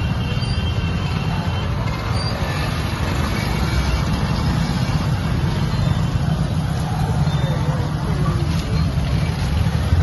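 Several small motorcycles and scooters running at low speed as they ride past in a group, with people's voices in the background.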